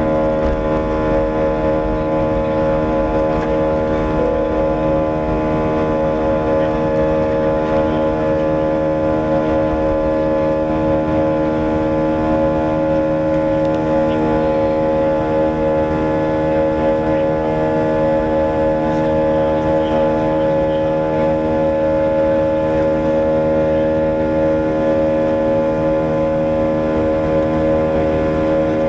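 Airbus A320 jet engine at climb power just after takeoff, heard inside the cabin from a window seat beside the engine. It is a loud, steady drone of many held humming tones over a low rumble.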